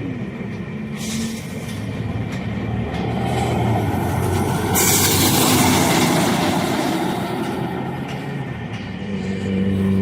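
Scania K270UB city bus's rear-mounted diesel engine running, its note shifting as the bus moves, growing louder toward the middle and then fading. A sharp burst of compressed-air hiss comes about five seconds in.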